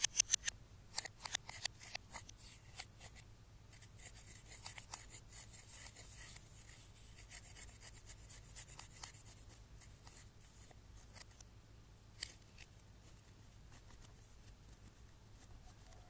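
Close-up handling sounds of slime being mixed with makeup: a quick run of sharp clicks and snaps, then a soft scraping crackle, then a few faint clicks.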